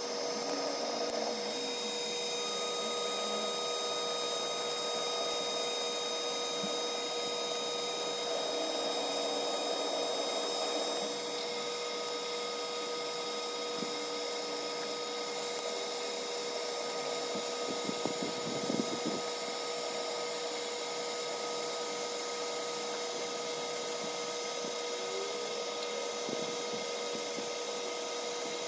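Electric hot-air charcoal lighter running steadily, a fan whine with a rush of air, blowing into lump charcoal to light it.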